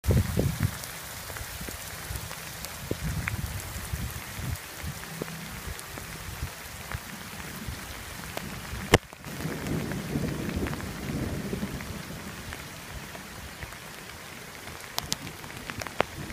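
Steady rain falling in a forest, with low rumbles of thunder that swell near the start and again about ten seconds in. A single sharp tick about nine seconds in is the loudest moment.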